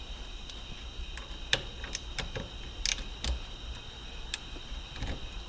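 A handful of light, irregular metallic clicks and taps from screws and hand tools being worked while an aftermarket Nardi steering wheel is fastened to its hub.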